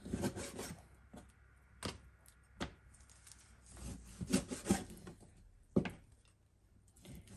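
Large hand-forged kitchen knife slicing raw chicken thighs, with a handful of irregular knocks as the blade meets the plastic cutting board and soft scraping between them.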